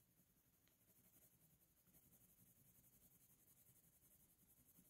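Near silence, with the faint rubbing of a drawing tool shading colour onto paper from about a second in.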